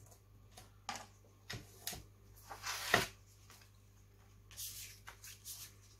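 Sheets of card being handled on a cutting mat: scattered light taps and paper rustles, the sharpest tap about halfway through and a few soft sliding rustles near the end.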